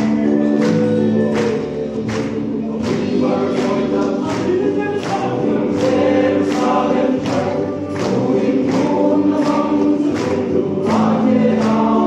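Men's choir singing a gospel song in several voices, over a steady beat of sharp strikes a little under two a second.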